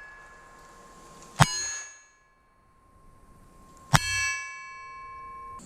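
Two shots from a Marlin .22 LR rifle firing CCI Mini Mag rounds, about two and a half seconds apart. Each sharp crack is followed by a short ringing tone.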